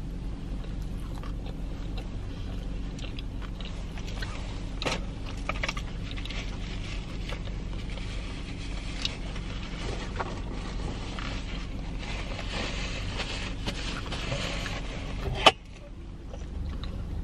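Mouth sounds of chewing and crunching a Takis-coated Korean fried mozzarella stick, scattered small crackles over a steady low hum inside a car. A sharp click sounds near the end.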